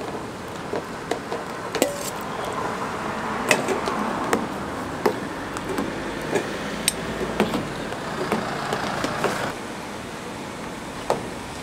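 Metal ladles clinking and scraping against a steel tteokbokki pan as rice cakes are stirred into thick red sauce, with many sharp clinks at uneven intervals.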